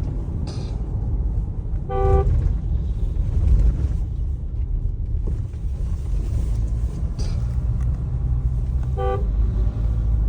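Steady low driving rumble inside the cabin of a Mahindra Scorpio-N diesel SUV on the move. A vehicle horn gives two short toots, about two seconds in and again near the end.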